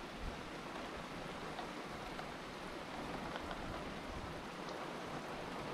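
Heavy rain falling steadily: an even hiss with scattered faint drop ticks.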